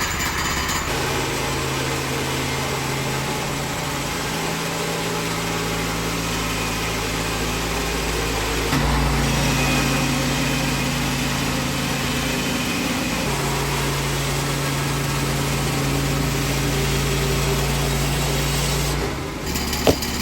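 Small gasoline engine of a Woodland Mills HM122 portable band sawmill running steadily while the band blade saws through a log, its pitch stepping a few times as the load changes. Just before the end the engine note drops away and a single sharp knock follows.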